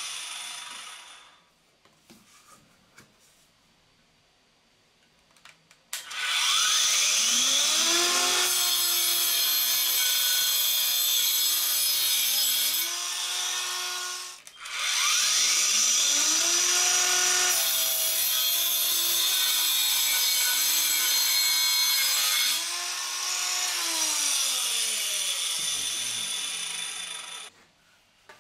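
Angle grinder rigged as a mini circular saw, fitted with a 115 mm blade, cutting a wooden board. It starts about six seconds in with a rising whine and settles into a steady run. It cuts out briefly near the middle, spins up again, runs more quietly for the last few seconds and winds down with a falling pitch near the end.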